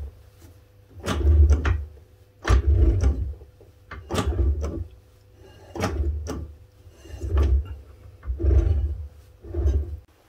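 Rear brake drum of a 1956 Ford Consul being worked round by hand over newly fitted brake shoes: about seven strokes, each a low rumble with a knock at its start, roughly every second and a half.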